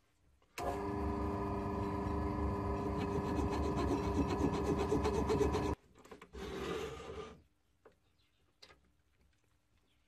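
1893 Strube & Fils metal lathe running with a brass rod in its three-jaw chuck: a steady, rasping run with a set of even tones that starts sharply about half a second in and cuts off about five seconds later. A shorter, noisier burst of about a second follows.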